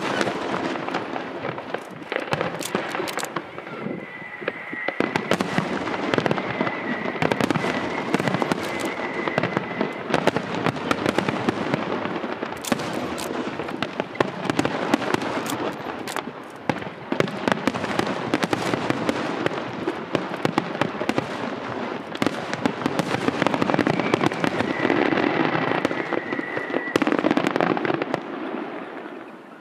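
Aerial fireworks going off in a dense, continuous barrage of bangs and crackling, dying away near the end.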